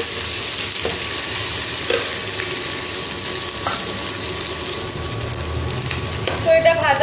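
Green jackfruit and potato pieces sizzling steadily as they fry in oil in a non-stick wok, with a spatula stirring and now and then lightly tapping the pan. A voice-like sound with a wavering pitch comes in loudly near the end.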